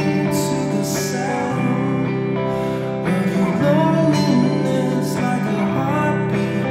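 A man singing to his own electric guitar, the guitar playing steady chords throughout and the voice coming in over it around the middle and again near the end.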